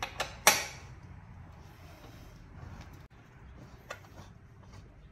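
Screwdriver clicking against a screw in a rowing machine's steel frame rail: three sharp metal clicks in the first half-second, the third the loudest, then a single click near the end as the screw is turned.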